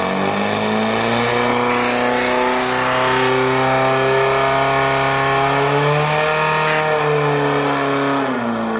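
Portable fire pump's engine running at high revs under load, driving water through the attack hoses. Its pitch climbs a little at the start, holds high and steady, then drops near the end as the revs fall.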